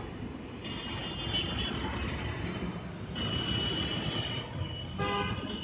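Street traffic noise with vehicle engines running, and a short vehicle horn near the end.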